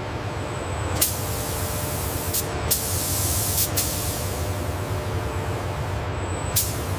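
Steady, loud hissing noise, like air or spray, broken by a few sharp clicks.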